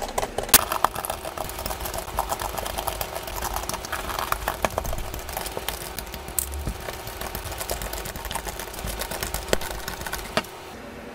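Rapid small clicks and taps of a precision screwdriver working on the screws of a phone's metal mid-frame. The clicking stops about ten and a half seconds in.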